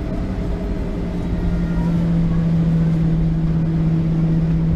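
Cabin noise of a Boeing 737-700 taxiing, its CFM56 jet engines running at taxi power: a steady low hum over a broad rumble, getting a little louder about a second in.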